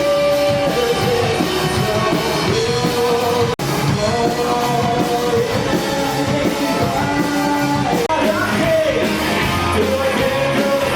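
Live rock band playing, with a singer holding long sung notes over guitars and drums. The sound drops out for a moment about a third of the way in.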